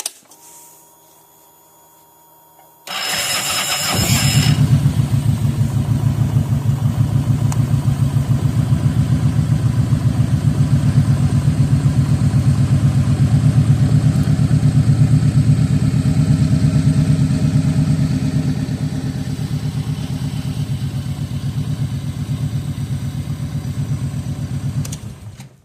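2009 Kawasaki Vulcan Nomad 1700's V-twin engine is cranked by the starter about three seconds in, catches and idles steadily, then is switched off just before the end. It starts and runs normally now that its burnt-out ground joint has been replaced with a bus bar.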